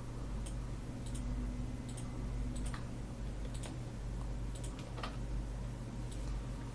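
Scattered sharp clicks of a computer mouse and keyboard, about ten of them at uneven intervals, over a steady low hum.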